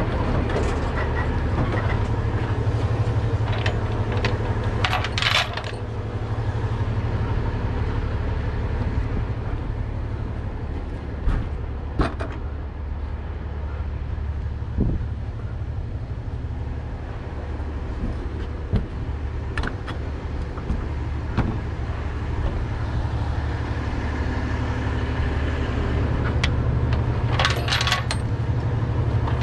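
Tow truck engine idling steadily under scattered clicks and metallic jingling of tow chains being handled, with bursts of chain rattle about five seconds in and again near the end.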